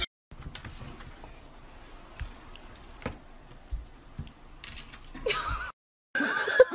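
Light jingling and scattered sharp clicks as a puppy scrambles about on a tabletop.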